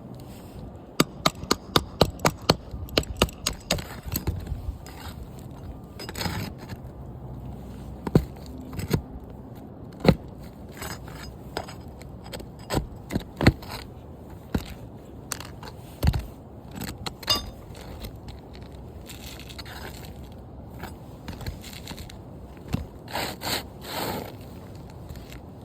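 Hand tools at work on roof shingles: a quick run of sharp taps or knocks about a second in, then scattered knocks and scraping.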